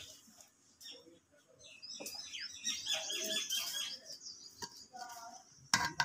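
Small birds chirping in a quick string of short calls a couple of seconds in, with a couple of sharp knocks near the end as the steel ladle strikes the aluminium pot.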